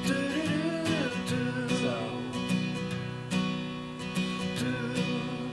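Background music led by a strummed acoustic guitar with a steady rhythm and a wavering melody line over it.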